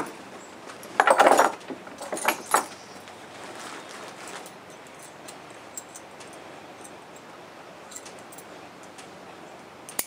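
Metal clips and buckles on a bundle of dog leashes and harness straps jangling, loudest in a clatter about a second in and again in a few sharp clinks around two and a half seconds, then only scattered faint clicks.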